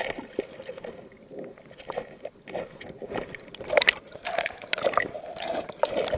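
Muffled underwater sound from a waterproof camera held beneath the surface over a stony bottom: water sloshing and gurgling, with irregular small clicks and knocks that grow busier about halfway through.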